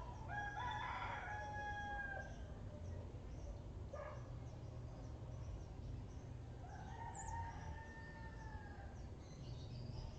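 A bird calling twice, with long drawn-out calls about six seconds apart and a short call between them, over a steady low background rumble.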